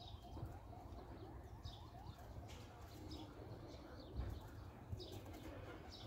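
Domestic pigeons cooing faintly, with small birds chirping over them and a soft low thump about four seconds in.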